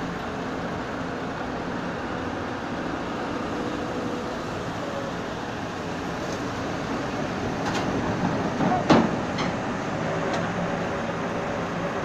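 Steady drone of diesel trucks and heavy machinery running, with a few sharp clicks and one sudden loud knock about nine seconds in.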